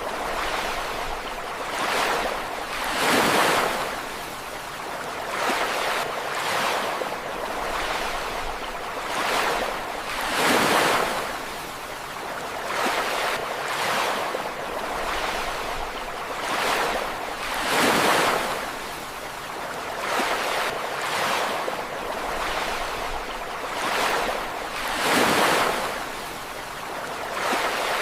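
Ocean waves breaking and washing on a shore. A big surge comes about every seven seconds, with smaller washes in between.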